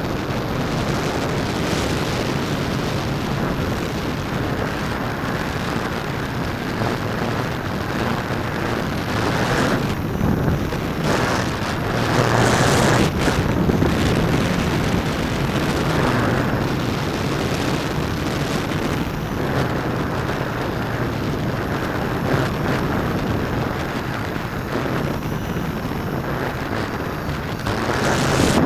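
Stiff headwind howling and buffeting on the microphone of a keychain camera strapped under a hexacopter's battery, over the steady drone of the S650 hexacopter's electric motors and propellers. The wind noise gets louder about halfway through and again near the end.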